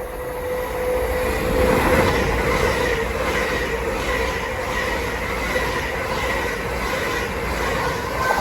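Passenger train passing through the station at speed: a loud rushing noise that builds over the first two seconds and holds, with steady whining tones on top and faint regular wheel beats.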